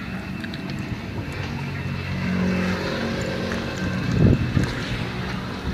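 A motor vehicle engine running steadily with a low hum, growing a little louder about two seconds in, with a brief louder swell about four seconds in.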